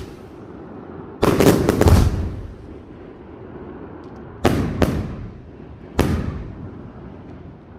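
Aerial firework shells bursting in a castillo display: a rapid volley of bangs about a second in, then two bangs close together, then a single bang, each fading away.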